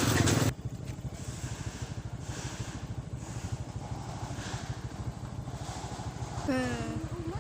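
Small petrol engine idling. It is loud for the first half-second, then drops suddenly to a steady idle with a fast, even pulse. A short sliding tone comes near the end.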